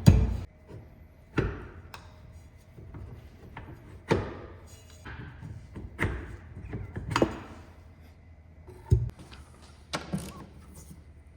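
Scattered knocks and clunks from hand tools at work on a car transmission, about a second or several seconds apart, with one sharp strike right at the start.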